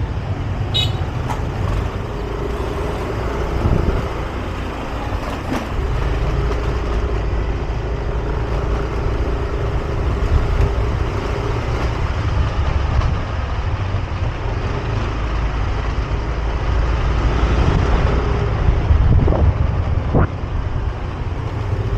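Yamaha scooter ridden slowly, its small engine humming steadily, with wind rumbling on the microphone.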